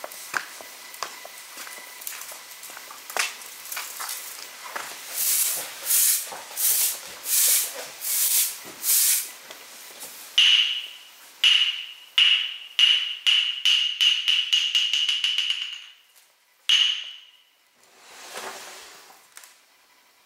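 Bamboo broom sweeping stone paving in strong swishing strokes, then a run of sharp strikes, each with a high ringing tone, speeding up into a rapid roll. A last single strike follows, then a soft swell of hiss.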